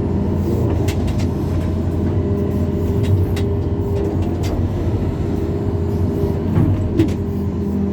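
Diesel engine of a backhoe excavator running steadily while digging, with a few sharp metallic clicks and knocks, the loudest about seven seconds in.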